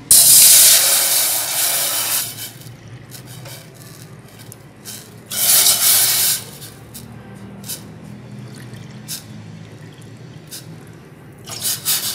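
Cold water poured from a plastic measuring cup into a stainless steel saucepan, three cupfuls: a long splashing pour at the start, a shorter one about five seconds in, and a third near the end, with small clicks and drips between.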